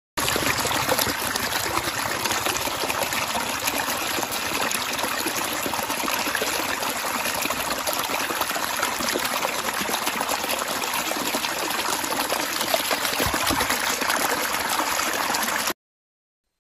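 Fast, shallow stream water rushing steadily around a wading black bear. It cuts off suddenly near the end.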